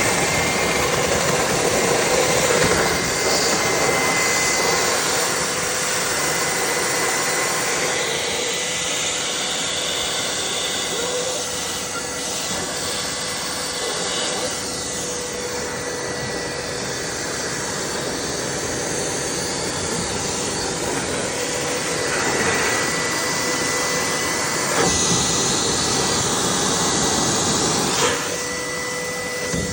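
EGO Power+ cordless wet/dry vac running steadily with a constant motor whine, sucking standing condensate out of a clogged PVC drain line. A couple of short knocks near the end.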